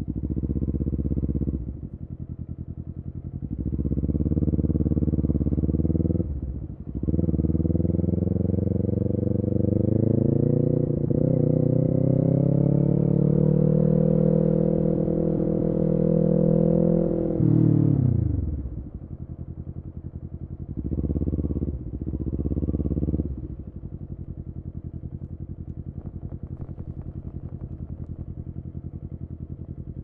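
Kawasaki Ninja 400's parallel-twin engine through an Akrapovic full-system exhaust. A short rise in revs at the start is followed by pulling away, with a brief dip about six and a half seconds in, and then a long, steady climb in revs. Near eighteen seconds the revs fall off quickly to idle, then come two short throttle blips a little after twenty seconds, and it idles.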